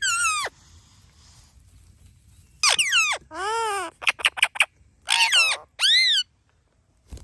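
Indian ringneck parakeet calling: a shrill falling squawk at the start, then after a pause a string of loud, arching screeches with a quick run of short notes in the middle. A short low thump near the end.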